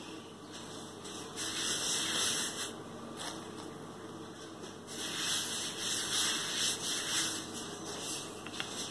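Wooden rolling pin rolling out floured patty dough on a countertop: a dry rushing hiss that swells with each stretch of strokes, about a second in and again from about five to seven and a half seconds.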